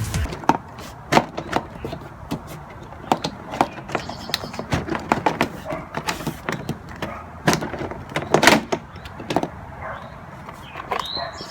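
Plastic car door trim panel being pried and pulled off its door: an irregular string of sharp clicks and knocks with scraping between them, the loudest about eight seconds in.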